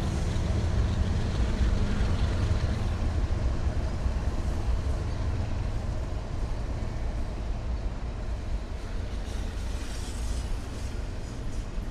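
Steady low rumble of a passing vehicle, slowly getting quieter.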